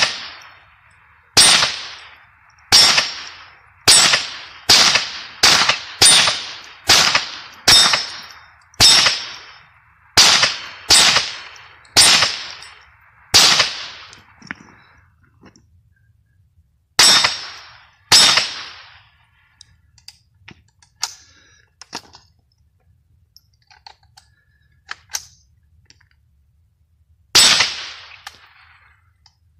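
Mossberg Blaze .22 LR semi-automatic rifle firing: about fifteen shots in quick succession, roughly two a second, each with a short echo. Then a pause, two more shots, light clicks of handling and a last single shot. The pauses fit feeding stoppages with the Winchester 36-grain hollow-point ammunition, which the shooter says the rifle doesn't like.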